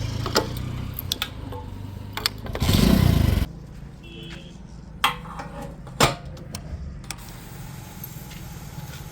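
Diesel engine of earth-moving machinery running with a steady low rumble and a loud rushing surge about three seconds in. It then drops suddenly to a quieter low hum broken by a couple of sharp clicks.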